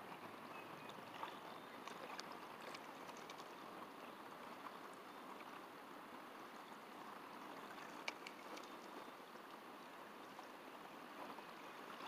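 Faint steady outdoor background noise with a few soft ticks, the clearest about two-thirds of the way through.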